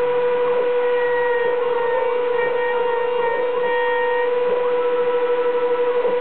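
Small desktop CNC router carving a wooden blank: the spindle runs at a steady whine that wavers slightly, with light cutting noise as the bit moves through the wood.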